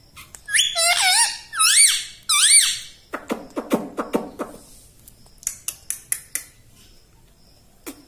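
Rose-ringed parakeet giving three or four loud whistled squawks, each rising and then falling in pitch, followed about three seconds in by a fast, lower chattering run and then a few soft clicks.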